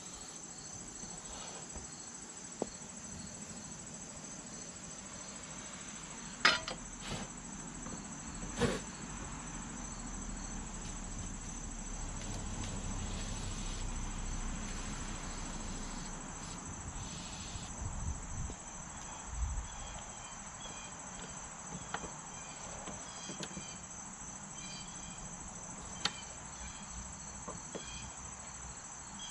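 Propane blowtorch heating seized engine mounting bolts on a push mower, a low steady flame noise that swells through the middle. Two sharp metal knocks come about six and nine seconds in, and light clicks of tools follow later. A steady high chirring of insects runs underneath.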